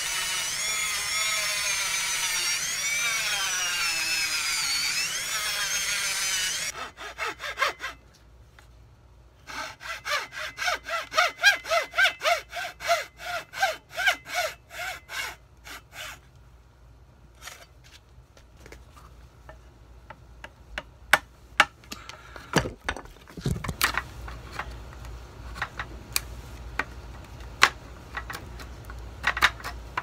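A corded electric rotary tool grinding wood, its pitch wavering with the load, stops about seven seconds in. After a short pause a hand saw cuts through a wooden stick at about two strokes a second. In the second half a chisel pares the wood with scattered sharp clicks.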